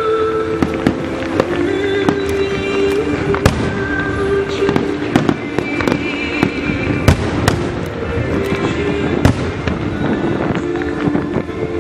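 Aerial firework shells bursting in an irregular series of sharp bangs, the loudest about a third of the way in, just past halfway and about three-quarters through, with music playing steadily underneath.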